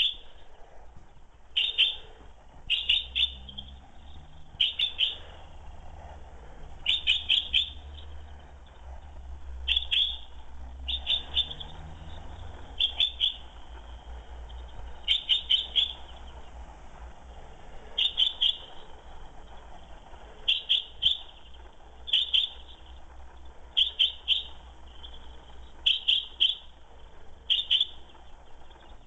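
Female chaffinch calling: short, sharp, high notes in quick clusters of two to four, repeated every second or two.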